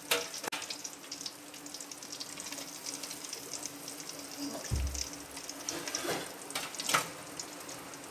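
Hot oil sizzling and crackling in a steel kadai as deep-fried sukhiyan are scooped out with a metal slotted spoon, with a few sharp clinks of the spoon against the pan.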